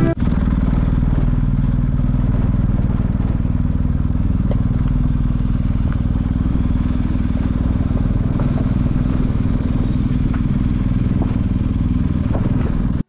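Motorcycle engine running steadily at low speed, heard from on the bike, with scattered small clicks from the tyres rolling over gravel.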